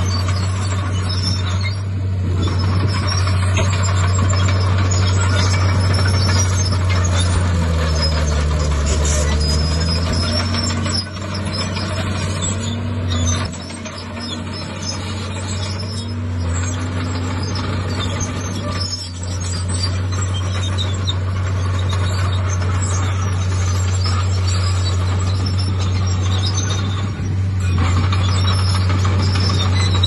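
Diesel engine of a Komatsu D51PX crawler bulldozer running steadily under load as a low drone, with machinery clatter and hiss over it. A second engine note wavers up and down in pitch from about 8 to 17 seconds in.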